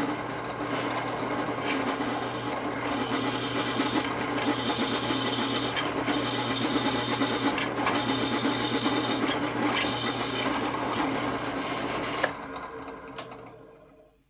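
Home-model drill press running steadily with a constant motor hum while drilling metal. It is switched off about twelve seconds in and winds down.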